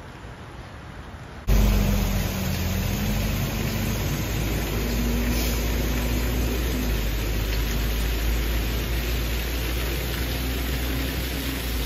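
Faint hiss, then about a second and a half in a sudden switch to a loud, steady rush of rain and runoff pouring into a flooded stream, with a deep rumble beneath. A faint, wavering hum like a motor vehicle engine runs under the water noise.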